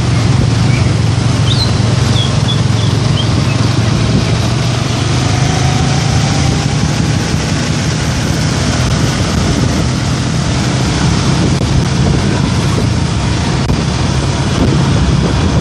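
Motorcycle engine running steadily while riding in town traffic, with wind and road noise. A few short high chirps come about two seconds in.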